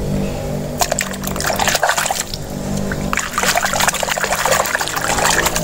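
Hand splashing and swishing in a basin of soapy water, washing a plastic toy. The splashing starts about a second in and goes on in irregular bursts, with steady music underneath.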